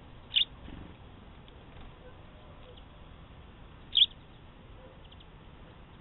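A small songbird chirping twice: two short, high chirps about three and a half seconds apart.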